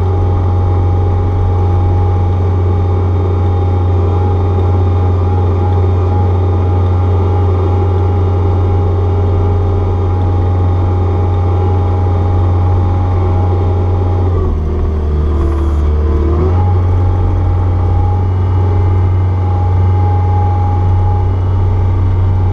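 Caterpillar 236B skid steer's diesel engine running steadily at high revs while pushing snow. About two-thirds of the way through, the engine note drops for a couple of seconds, then comes back up.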